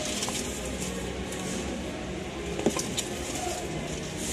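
Metal spoon scooping rice from a plastic food container, with a sharp click about two and a half seconds in and a smaller one just after, over steady background noise.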